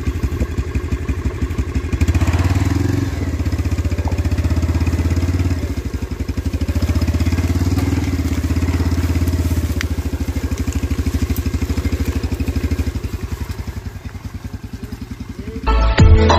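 Motorcycle engine running under load in low gear, revving up and easing off several times as it pulls along a muddy dirt track. Music starts abruptly just before the end.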